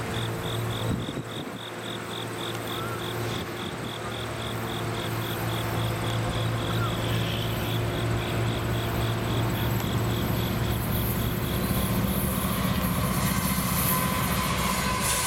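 Norfolk Southern AC44C6M diesel-electric locomotive (GE 7FDL-16 engine) approaching with its engine compartment doors left open: a steady low engine drone that grows gradually louder. Higher whining tones come in over the last few seconds as it draws close.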